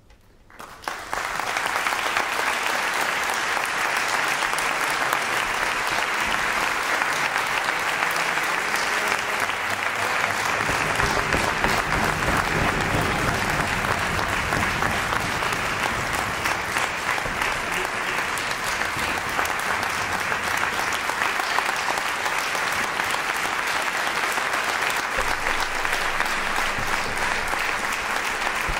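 Audience applause, breaking out about a second in and going on steadily.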